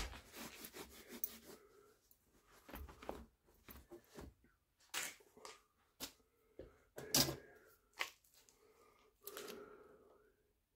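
Irregular clicks, knocks and short scrapes, as of small metal parts and hand tools being handled on a workbench, about a dozen separate sounds with a louder knock a little after the middle.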